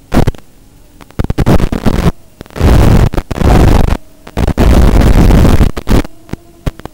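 Loud bursts of hissing radio static, cutting in and out irregularly, from the analog FPV video receiver's audio channel as the drone's video signal weakens and breaks up.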